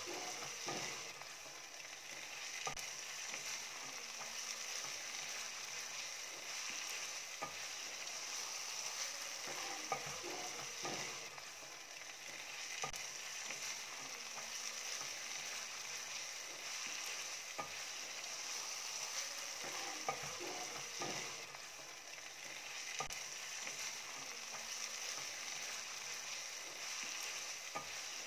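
Steady sizzle of food frying in a pan, with a few light clicks and taps scattered through it.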